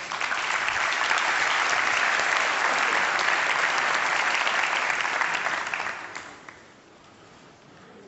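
Audience applauding, a dense clapping that holds steady and then dies away about six seconds in.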